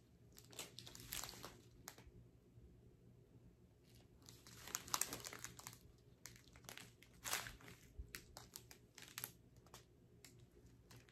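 Faint crinkling of small plastic bags of diamond painting drills being handled, in short scattered rustles, loudest about five seconds in.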